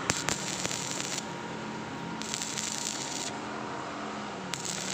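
Stick welding arc on thin square steel tube, crackling in three bursts of about a second each with short pauses between, as the electrode is struck and broken off in turn to lay the weld in stitches on the thin wall. A steady low hum lies under it.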